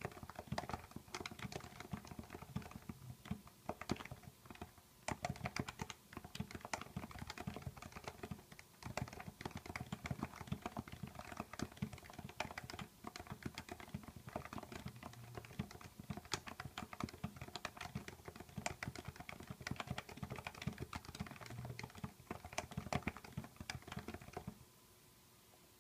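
Continuous typing on a Happy Hacking Keyboard Professional with 45 g Topre switches lubed with Krytox 103: a quick, uneven stream of key presses. The typing stops about a second before the end.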